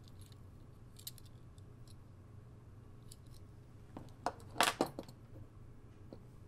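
Miniature Glock 45 keychain model pistol being handled, its small parts giving a few faint clicks, then a quick cluster of sharp clicks and taps about four to five seconds in as it is set down on a table with its keyring clasp.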